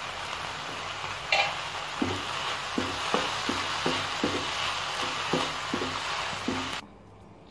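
Shredded chicken and onion sizzling in a frying pan while a spatula stirs them, knocking against the pan about three times a second from about two seconds in. The sound cuts off sharply near the end.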